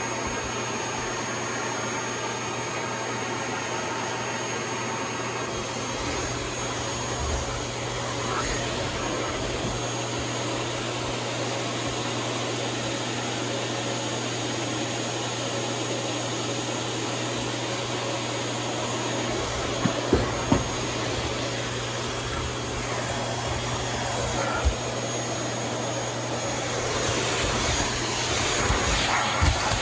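Vacuum cleaner running steadily with a constant motor whine. There are a few short knocks about two-thirds of the way through, and more clattering near the end.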